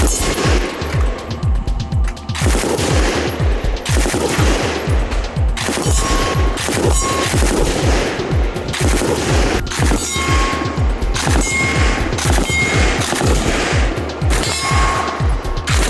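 PKM general purpose machine gun firing 7.62x54R in long, rapid bursts with a few brief breaks.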